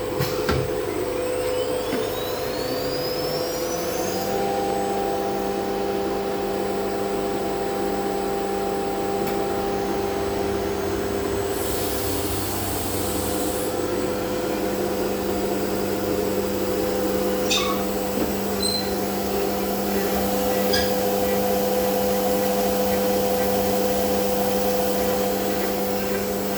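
CNC router spindle and axis motors running steadily with a high machine whine. Near the start a whine rises in pitch as the spindle spins up, and further motor tones come and go as the axes move.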